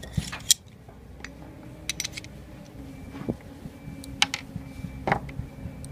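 Scattered sharp metallic clicks and taps from a Smith & Wesson Victory .22 pistol being taken apart by hand, its barrel assembly and small parts handled with a T-handle hex key. There are a few separate clicks, with a quick cluster about two seconds in.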